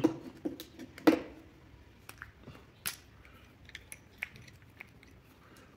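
Scattered small clicks and knocks of a car starter motor being taken apart by hand, as the plastic gear carrier and the small planetary gears are lifted out of the housing. There is a sharper knock about a second in and another near three seconds.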